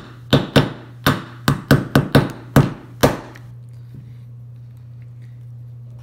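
A small hammer tapping lightly on the spine of a small knife blade wedged into the snap-on case back of a watch, prying the back off. About ten sharp metal taps come in the first three seconds, irregularly spaced, then stop.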